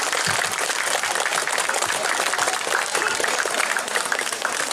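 Audience applauding steadily, many hands clapping together in a dense round of applause.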